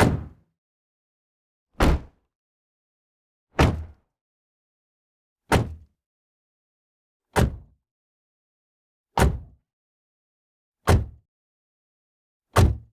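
Car door being shut from outside, slam after slam: eight closes about every two seconds, each a short thud with a quick fade and silence in between.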